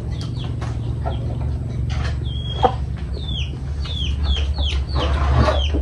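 Chicken peeping: a run of short, high calls that slide downward, coming faster near the end, over a steady low hum.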